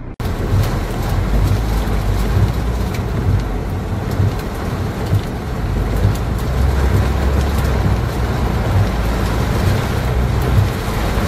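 Car driving through a heavy rainstorm, heard from inside: a steady rush of rain and wind over a low rumble, with a faint patter of drops. It cuts in abruptly just after the start.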